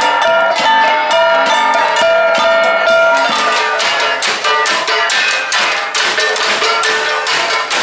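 Cordillera flat bronze gongs (gangsa) played as dance music: ringing pitched notes for about three seconds, then fast, dense struck beats.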